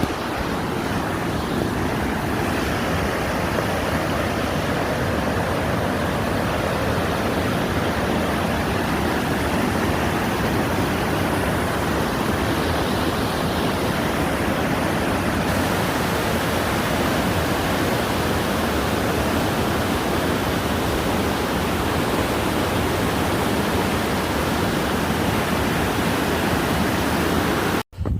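Rushing water of a creek swollen with floodwater, a loud, steady, dense rush that cuts off abruptly near the end.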